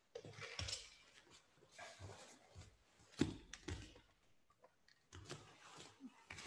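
Faint, scattered knocks and rustling from people moving about off-camera on the mats, with one sharper knock about three seconds in.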